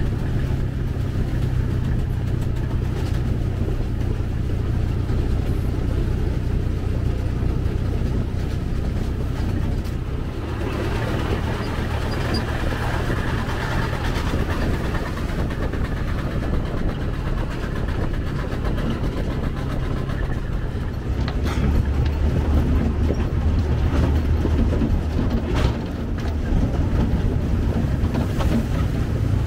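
ZiL-164 dump truck's six-cylinder petrol engine running while driving, heard from the doorless cab; it runs steadily and grows louder for a few seconds about three-quarters of the way through.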